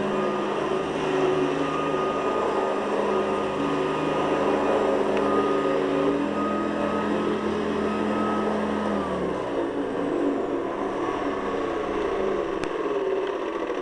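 Hoover Guardsman upright vacuum cleaner running steadily, a motor hum with a rushing airflow. About nine seconds in, its steady tones slide down in pitch and fade out, while the rushing noise carries on.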